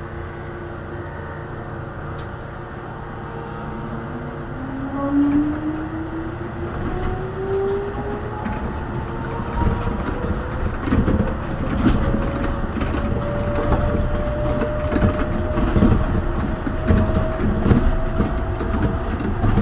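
Rubber-tyred people-mover car of the Yamaman Yukarigaoka Line pulling away from a station, heard from the cab: a drive whine rises in pitch as it gathers speed, over running noise that grows louder with short knocks and rattles.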